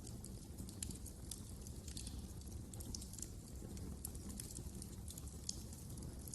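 Fire in a fireplace crackling: irregular sharp crackles and pops, several a second, over a low steady rumble of flame.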